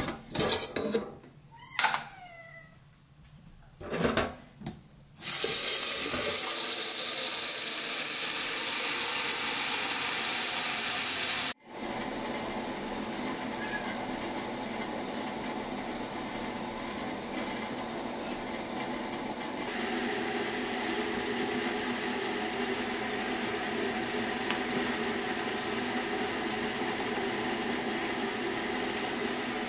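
Tap water running full into a stainless steel kettle in a kitchen sink for about six seconds, after a few knocks of the kettle being handled. The water cuts off sharply and a quieter steady hiss carries on.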